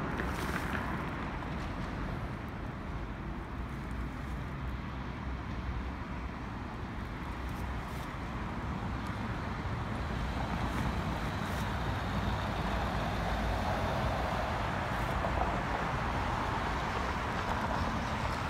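Street traffic noise: cars running along the road, with a vehicle passing closer and louder about two-thirds of the way through.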